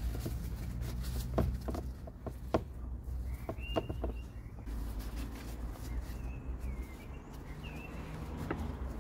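Outdoor ambience: a steady low rumble with small birds chirping now and then, and a few light clicks and knocks as the metal bar is handled in a plastic tub.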